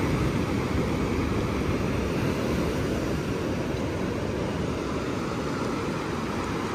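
Steady rush of ocean surf and wind at the shoreline, heaviest in a low rumble.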